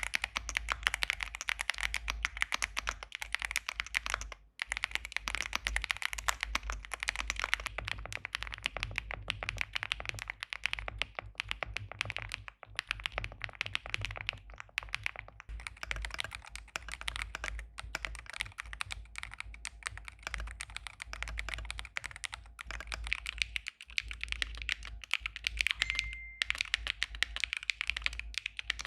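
Mechanical keyboard being typed on fast and continuously: a dense run of keystroke clacks, with short pauses about four and twenty-four seconds in.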